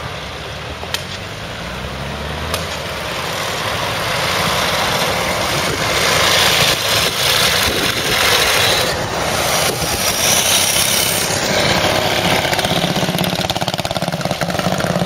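Veteran motorcycle engine running as the machine rides past on the road, growing louder from about four seconds in, with the pulsing of its firing strokes under a steady traffic noise.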